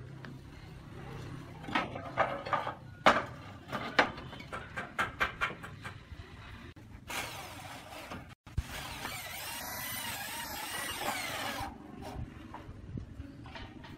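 Roof tiles knocking and clacking against each other and the frame as they are handled and set in place, with a stretch of scraping noise lasting a few seconds just after the middle.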